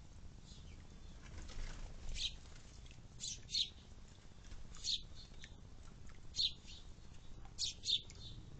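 Sparrows chirping: short, sharp chirps at irregular intervals, about seven of them, some in quick pairs.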